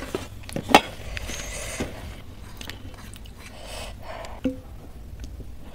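Close-miked eating and food handling: a hand mixing and squishing rice and curry on a steel plate, with chewing and a few sharp clicks. A short metallic clink of dishes about four and a half seconds in.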